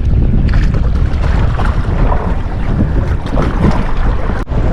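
Wind buffeting the microphone on an open fishing boat: a loud, steady, low rumble, with a momentary dropout near the end.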